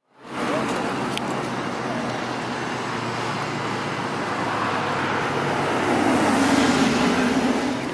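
Steady road traffic noise, swelling as a car passes close by near the end.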